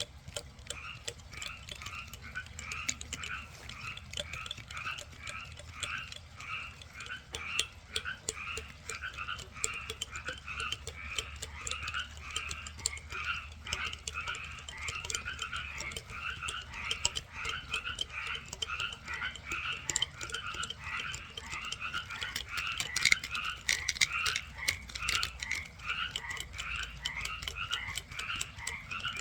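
Frogs calling in a steady chorus: short croaking calls repeated about twice a second without a break, with scattered sharp clicks among them.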